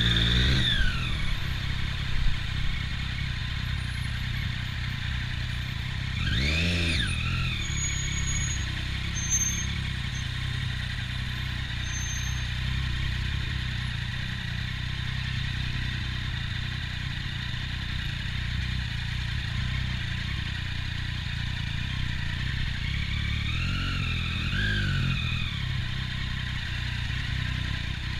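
Triumph Daytona 675's three-cylinder engine, fitted with an Arrow exhaust, running at low revs in stop-and-go traffic. Its revs rise and fall once about seven seconds in, and twice more briefly near the end. A couple of short sharp knocks come about two seconds in.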